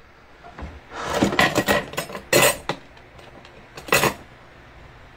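Plastic pouch of liquid bibim-noodle sauce being squeezed out onto noodles: crinkling plastic and sauce spluttering out. It comes in a few short bursts, a cluster about a second in, the loudest at about two and a half seconds, and another near four seconds.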